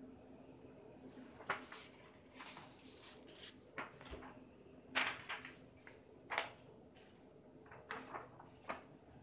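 Sheets of white paper being handled, lifted, bent and flapped, giving short irregular rustles and crackles every second or so. The loudest come about a second and a half in, about five seconds in, and again a second and a half later. A faint steady hum sits underneath.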